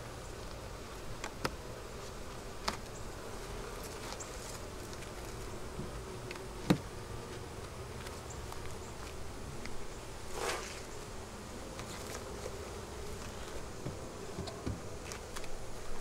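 Honeybees buzzing around an open hive, a steady hum, broken by several sharp knocks as the hive's inner and outer covers are set back in place; the loudest knock comes about six and a half seconds in.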